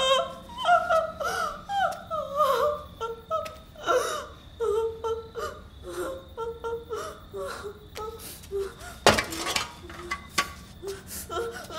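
A woman whimpering and sobbing in short, wavering, high-pitched cries. A brief scraping noise comes about three-quarters of the way through.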